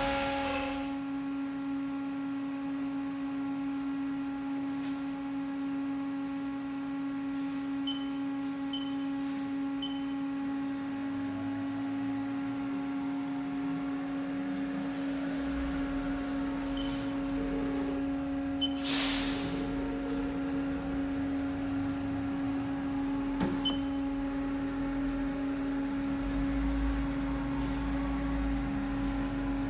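Steady electrical hum with a constant pitched drone from a powered-up Haas Super Mini Mill CNC vertical machining center idling, its control cabinet and drives energised. Faint short beeps or ticks come now and then, and a brief falling swoosh comes about two-thirds through.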